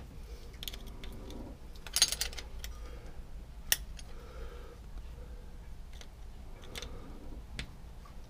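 Small metal clicks and taps of a screwdriver and spanner working a rocker-arm adjusting screw and its locknut on a Volvo Penta KAD 44 diesel, setting the valve clearance. There is a quick cluster of clicks about two seconds in, a single sharp tick a little before the middle, and a few lighter ticks near the end.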